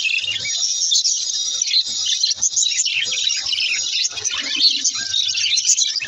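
A flock of budgerigars chattering and chirping, many high calls overlapping without a break.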